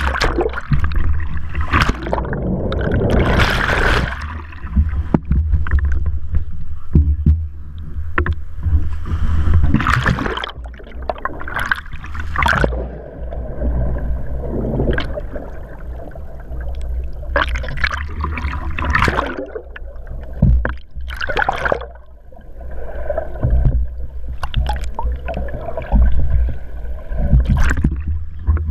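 Action camera in its waterproof housing plunging in and out of choppy sea water: muffled sloshing and repeated splashes over a steady low rumble.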